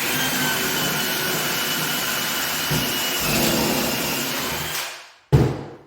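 An electric power tool motor running steadily for about five seconds, then winding down, followed by a single knock.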